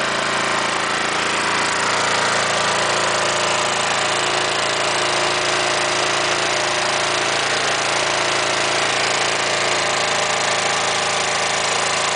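Toro push mower's small single-cylinder engine running steadily on wood gas from a home-built gasifier.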